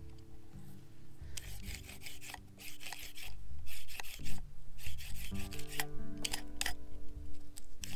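A series of rasping, scraping strokes, each lasting under a second, over soft background music with held notes.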